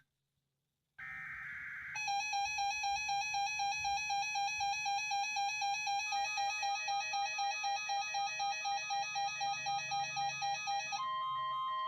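The last of the three SAME digital header bursts of a NOAA Weather Radio Required Weekly Test plays as a harsh one-second buzz. The weather radio receivers' alert then beeps about two and a half times a second. Near the end a steady high tone comes in with it, the warning alarm tone.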